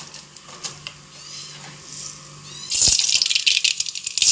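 Mustard seeds in hot oil in a pan, with scattered faint clicks at first. About two-thirds of the way in this turns suddenly into loud, dense sizzling crackle full of sharp pops as the seeds start to splutter and burst.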